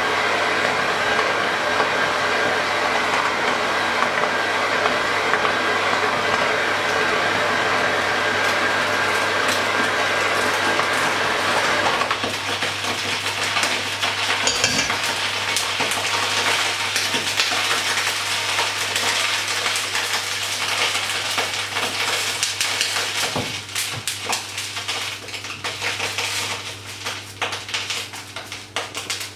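Electric hand mixer running, its beaters churning a thick batter in a stainless-steel bowl with a steady motor whine. The steady whine drops out about twelve seconds in, giving way to a rougher clattering and scraping. Near the end there are scattered knocks as the steel bowl is handled.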